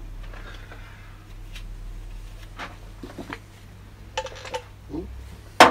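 Light metallic clicks and taps of camshaft bearing caps and hand tools being handled on a workbench, with a loud metal clank at the very end, over a steady low hum.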